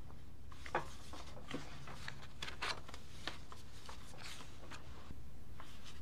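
Quiet room tone with a steady low hum, and a scattering of faint rustles and small ticks, the sharpest tick about a second in.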